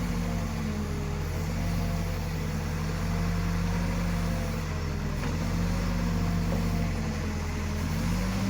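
Diesel engine of heavy machinery running steadily at a constant speed, with a faint wavering whine above the engine note.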